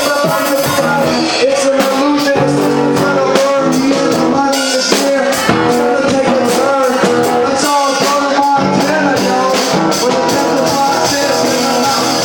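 Live band playing loud music: drum kit, guitar and singing.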